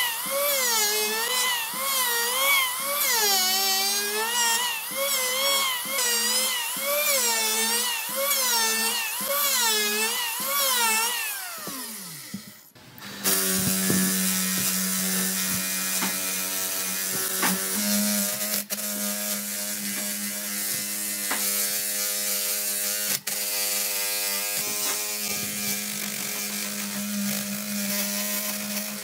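Electric hand planer shaving the end of a log, its motor pitch dipping and recovering with each of about eight passes, then winding down about twelve seconds in. After a brief gap, an electric motor spinning a sanding disc runs steadily against the outside of the log.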